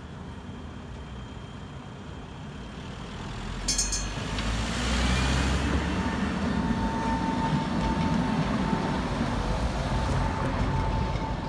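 Tatra T3 tram running along street tracks: a low rumble that builds from about four seconds in, with a steady whine from the running gear through the second half.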